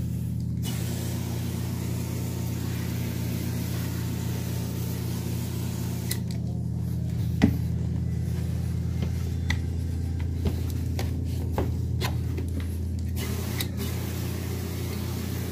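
Carpet-cleaning machine motor running steadily with a low hum, with scattered light clicks and one sharper knock about halfway through.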